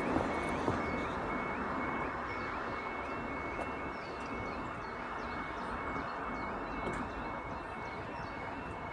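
UK level crossing warning alarm sounding its repeating high electronic tone, about three to four pulses a second, over a steady rushing background.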